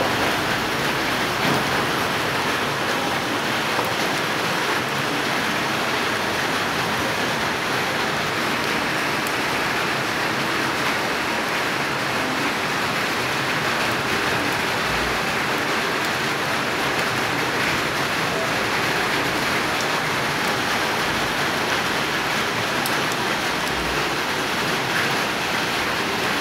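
Light rain falling steadily on roofs, an even hiss of drops with no let-up.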